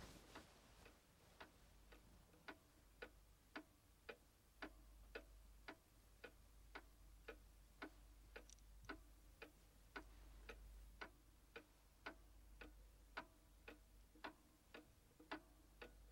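Faint, steady ticking of a bomb's timer, about two ticks a second, while the wire is about to be cut.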